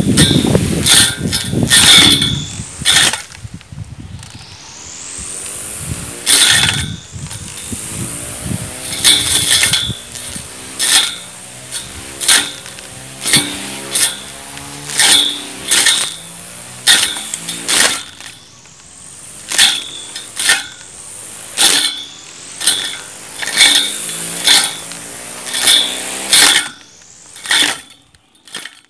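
Homemade electric grass trimmer driven by a DC 775 motor, its spinning plastic disc whirring and hitting weeds in repeated swipes about once a second. The motor's whine dips as it cuts and rises again between strokes, and it cuts off near the end.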